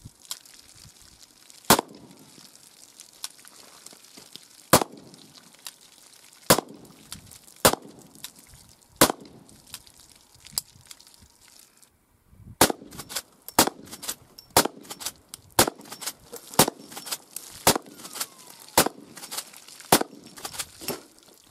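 Sabotted .44 Magnum rounds firing, each a sharp report that sounds more like a .223 than a normal .44 Magnum. First a revolver fires about five shots one to three seconds apart; then, after a brief break, a .44 Magnum lever-action rifle fires about eight shots roughly a second apart, with lighter clacks of the lever being worked between them.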